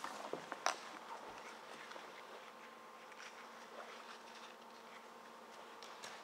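Faint steady hum, with one sharp click under a second in and a few light ticks after it.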